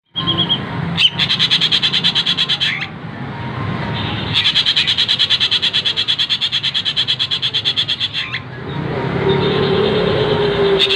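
An ekek bird calling in fast rattling chatters of about a dozen notes a second, in two long runs of a couple of seconds and more.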